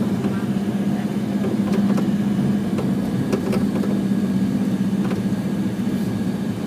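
Engine of a moving road vehicle, heard from aboard, running at a steady speed: a constant low drone with a few light rattles.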